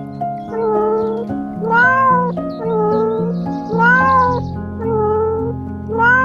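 Cat meowing about six times, roughly once a second, alternating a dipping call with a rising-and-falling one, over background music.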